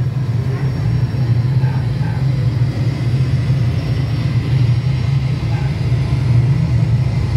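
Jet-engine takeoff sound effect played over loudspeakers for a model airliner's takeoff run: a loud, steady low rumble.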